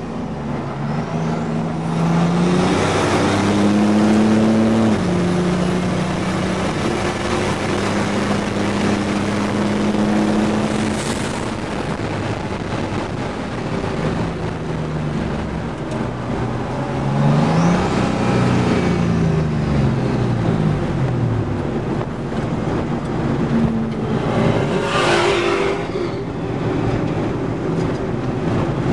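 GMC Syclone's turbocharged 4.3-litre V6 heard from inside the cab, running hard on track, its note stepping and sliding up and down in pitch over a steady rush of wind and road noise.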